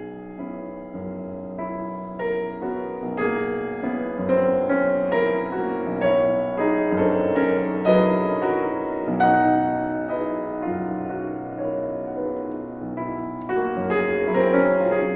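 Solo classical piano music, played at a flowing pace with notes struck in quick succession.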